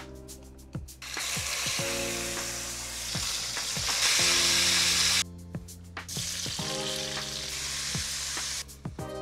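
Chicken thighs sizzling in hot fat as they sear in an enamelled Dutch oven, cutting off suddenly about five seconds in. Then sliced onions sizzle more softly as they are stirred, over background music with a steady beat.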